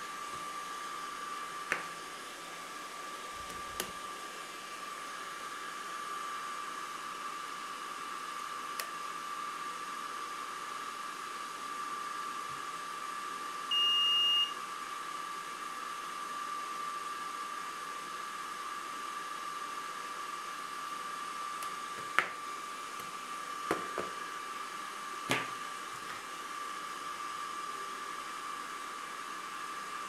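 Steady high electrical whine with a faint hiss from the powered laser engraver setup. About halfway through, the engraver's touchscreen controller gives one high beep of under a second as it powers up over the HDMI cable. Sharp clicks of cable plugs being handled come a few times.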